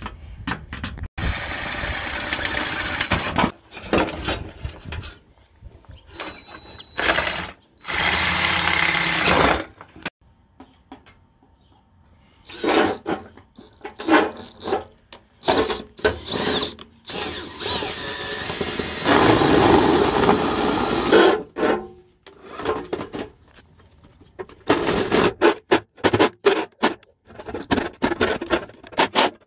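A small power tool running in short stretches of one to three seconds, with clicks and knocks of handling in the pauses between runs.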